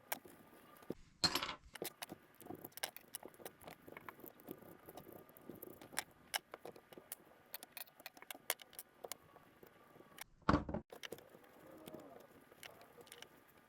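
Small metal parts of a Penn Monofil fishing reel clicking and clinking lightly as they are handled and cleaned, with two louder rattling bursts, one about a second in and one near the end.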